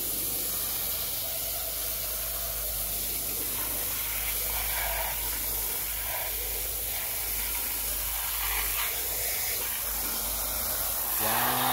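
Water spraying from a hose nozzle onto muddy plastic toy trucks and wet artificial grass, a steady spray without a break.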